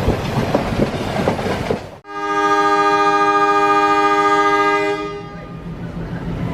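ALCO WDG-3A diesel locomotive hauling a passenger train: running rumble with wheels clacking over rail joints. About two seconds in, the sound breaks off suddenly, then the locomotive's horn sounds one long blast of about three seconds.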